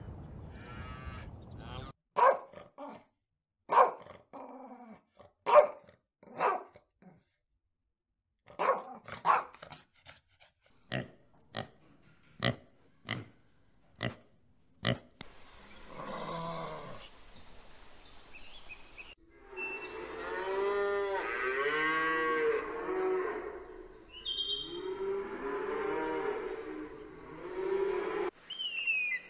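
A pig grunting in a string of short, sharp grunts, about one a second, followed in the second half by cattle mooing in long, drawn-out calls that overlap one another.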